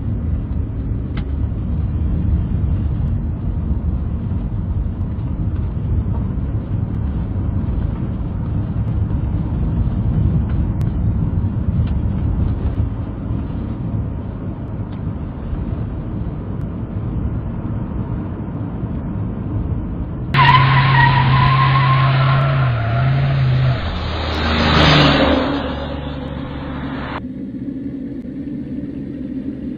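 Steady rumble of a car driving, heard from inside the cabin. About twenty seconds in, a louder, harsher noise with a low steady tone cuts in for several seconds and stops abruptly.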